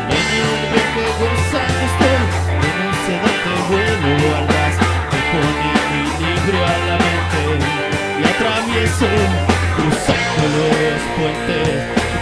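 Instrumental break of a rock song, without vocals: guitar over a bass line that holds long low notes, with a steady drum beat.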